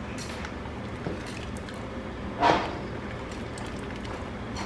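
Metal ladle scooping soup from a bubbling stockpot and pouring broth into a ceramic bowl, over the steady noise of the simmering pot, with a brief louder splash about halfway through.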